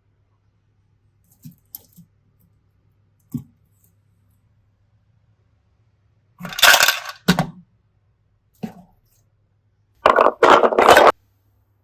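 Hands handling small objects: a few light taps and clicks, then louder rustling, crackling bursts of about a second each, around two-thirds of the way in and near the end.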